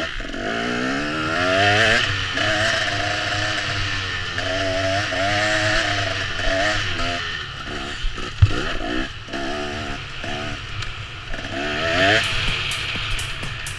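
Small racing engines revving hard. The pitch climbs and levels off several times as they accelerate, and there is a sharp knock about eight seconds in.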